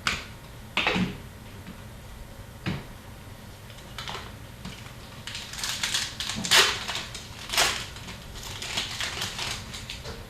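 Cardboard hockey trading cards being handled and sorted by hand: short papery scrapes and flicks as cards slide against each other, a few single ones at first, then a quick run of them through the later part.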